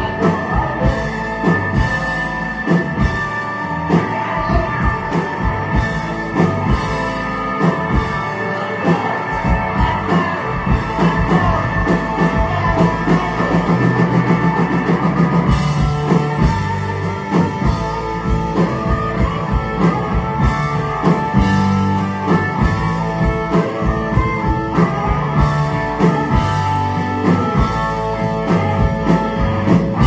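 Rock band playing live: electric guitars over bass and a drum kit keeping a steady beat.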